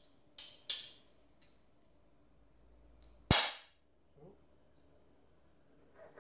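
Metal parts of a homemade five-cylinder radial engine clicking against each other as it is taken apart by hand, a few light clicks followed about three seconds in by one sharp, loud metallic clack.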